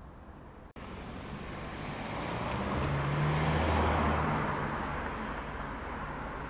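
A car drives past close by: tyre and engine noise swell to a peak about halfway through, then fade as it moves away.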